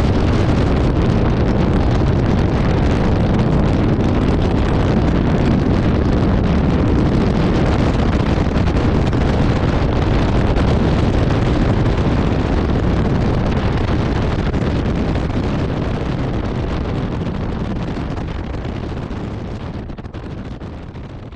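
Wind buffeting the GoPro's microphone while riding in a moving safari vehicle, a steady rushing rumble with the vehicle's running underneath. It fades away over the last few seconds.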